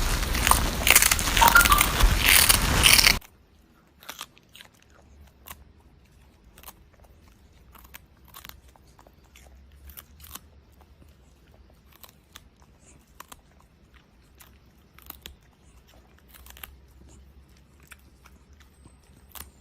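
Loud crackling noise that cuts off suddenly about three seconds in, then an animal chewing and crunching food in small irregular clicks.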